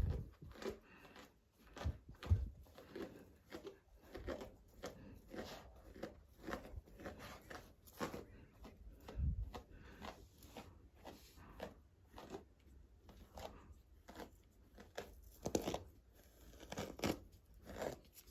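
A brush drawn through a dog's fur in many short, scratchy strokes, a few a second, with a few soft thumps from handling the dog.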